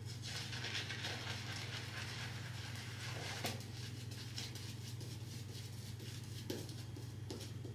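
Shaving brush swirling shaving-cream lather over a stubbly face: a soft, wet brushing hiss, strongest for the first three seconds and then fainter, with a few faint clicks. A steady low hum runs underneath.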